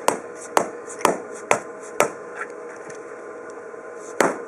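Hammer blows driving a strip of Gap Armour filler down into a concrete expansion joint: five sharp strikes about half a second apart, then a pause and one more strike near the end.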